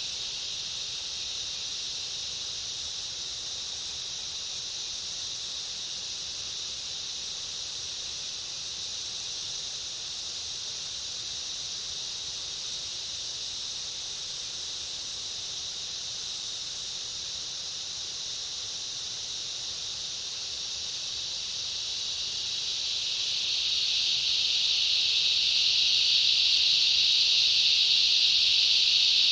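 Cicada chorus: a steady, high, hissing drone of many insects, with a thinner, higher insect whine above it that stops a little past halfway. The chorus swells louder about three quarters of the way through.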